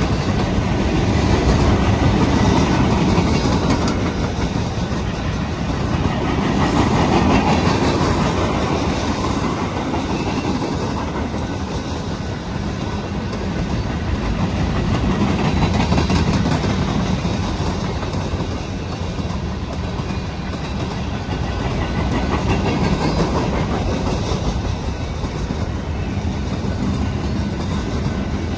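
Union Pacific freight train cars rolling past, a continuous rumble and clatter of steel wheels on the rails that swells and eases slowly in level.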